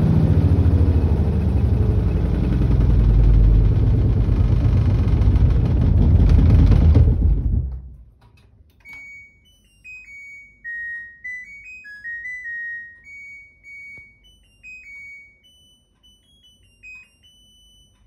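LG front-loading washing machine spinning loudly at high speed on an unbalanced load; the rumble stops abruptly about seven or eight seconds in. About a second later the machine's electronic beeper plays a short tune of stepped beeps, the end-of-cycle melody.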